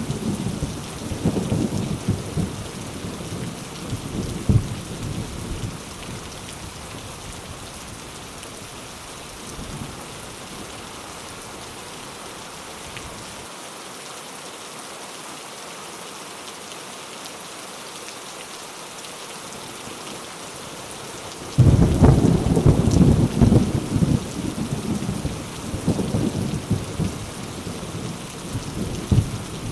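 Thunderstorm: steady rain falling, with rolling thunder that dies away over the first few seconds. About two-thirds of the way in, a sudden loud thunderclap breaks out and rumbles on in waves.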